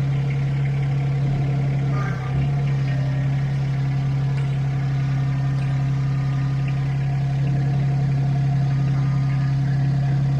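Compact tractor engine running steadily at a constant speed, with a brief dip about two seconds in.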